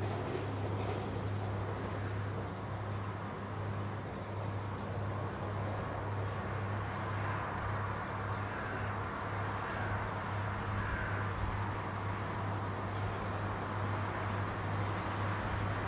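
Steady low engine hum of a rice combine harvester running in the field, with a few faint bird calls, crow-like, over it.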